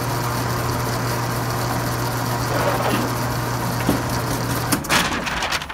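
Electric motor of a shooting range's motorized target carrier running steadily as it brings the target back to the firing line, stopping about four and a half seconds in, followed by a few sharp clicks.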